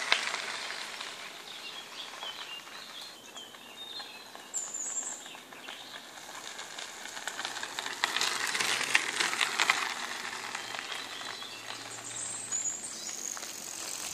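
Tyres of an ICE Sprint recumbent trike rolling over a gravel path as it rides past, loudest about eight to ten seconds in. There are a couple of short, high bird chirps.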